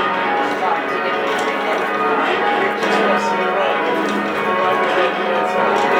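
Church tower bells being rung in change ringing: a continuous stream of bells struck one after another, their notes overlapping.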